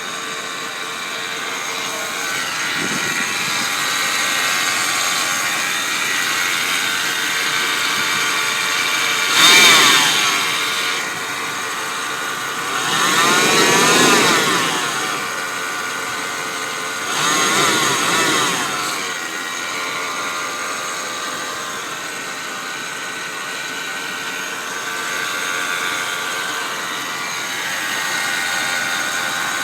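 2000 Jeep Cherokee XJ Sport engine running with a steady whir, which the owner places on the driver's side and suspects comes from the power steering pump pulley or the belt tensioner pulley. The sound swells three times near the middle, its pitch rising and falling with each surge.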